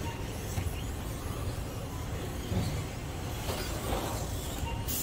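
Electric RC stadium trucks running on the track: a faint motor whine and tyre noise that rise and fall as a truck passes about three and a half seconds in, over a steady low rumble.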